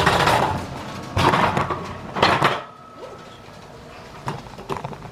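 Metal hotel luggage cart clattering as it is wheeled out of an elevator, with three loud rattling clunks in the first few seconds, then lighter clicks as it rolls on.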